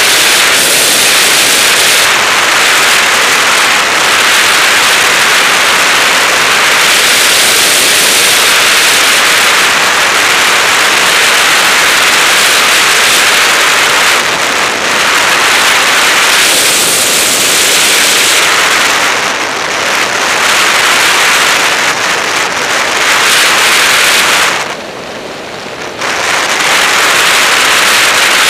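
Steady rushing wind noise from air streaming over a camera mounted on a DG-100 sailplane in gliding flight, with no engine. The rush dips briefly for about a second near the end.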